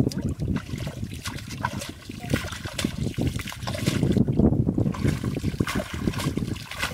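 Muddy water splashing and sloshing in a flooded hole as hands scoop through it, in irregular splashes.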